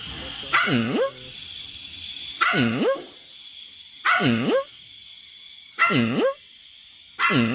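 A dog barking five times at an even pace, about every second and a half to two seconds, each bark dipping in pitch and rising again at the end.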